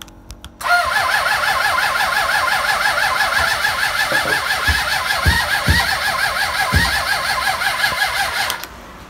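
Starter motor of a Suzuki GSX600F inline-four cranking the engine for about eight seconds with a fast, even rhythm and a few low thumps part-way through, then stopping suddenly without the engine catching. This is a failed cold start after brake cleaner has been sprayed into the intake; the carburettors are later found soaking wet.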